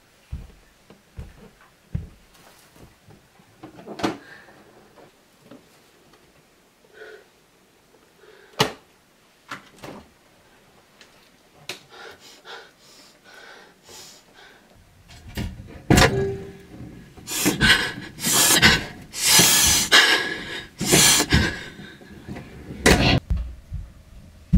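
Scattered knocks and clicks of things being handled in a kitchen, with a refrigerator door opened. From about fifteen seconds in, a long run of loud rustling and clattering.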